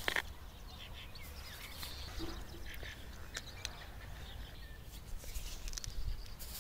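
Quiet outdoor background: a low steady rumble with scattered faint bird chirps and a few small clicks.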